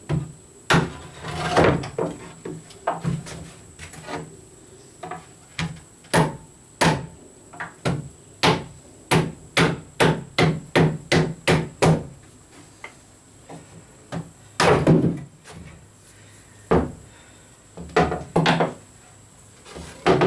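Mallet blows on a plywood boat bulkhead, knocking a test-fitted piece back apart. A long run of sharp wooden knocks quickens to about two a second in the middle. The loudest and longest knock comes a little past the middle, followed by a few more.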